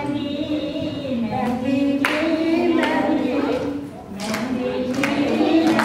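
Singing, with the voice held in long bending notes, and hand claps coming in from about two seconds in.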